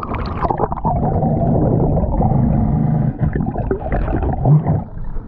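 Water splashing as a diver's head goes under, then a steady muffled underwater rumble with gurgling from his regulator, heard with the microphone underwater.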